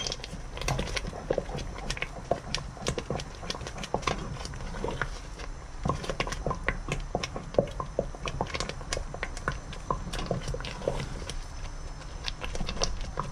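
Thick chestnut-starch batter cooking in a pot while being stirred: an irregular, quick patter of small wet clicks and plops, several a second.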